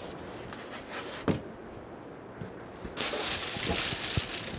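Packaging being handled: a single soft knock about a second in, then from about three seconds in the crinkling of a plastic bag wrapped around the heat press as it is reached for in its cardboard box.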